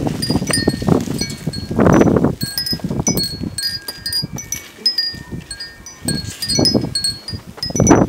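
Wind gusting against the microphone in uneven low rushes, strongest about two seconds in and at the end, while metal wind chimes tinkle irregularly at a few fixed high pitches.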